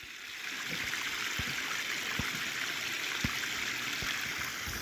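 Small brook trickling and splashing as water spills out of a pool past a log: a steady rush of running water, with a few soft low pops.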